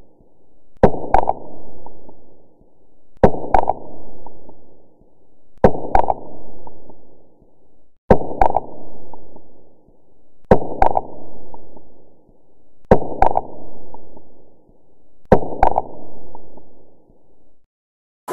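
Deep dramatic thuds laid over the footage as a sound effect: a sharp double thump repeating seven times about two and a half seconds apart, each dying away slowly.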